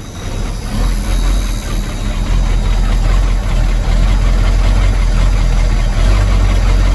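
A 1982 Ford L8000 dump truck's diesel engine idling steadily just after a cold start. The sound dips briefly near the start, then settles into an even run.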